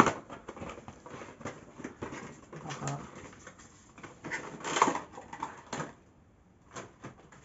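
Cardboard and plastic packaging handled and opened: scattered clicks and rustles, busiest about five seconds in, as a boxed AMD Ryzen processor is unpacked.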